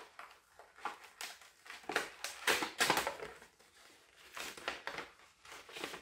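Gift-wrapping paper crinkling and tearing as a small wrapped package is opened by hand, in irregular rustles that are loudest about two and a half to three seconds in.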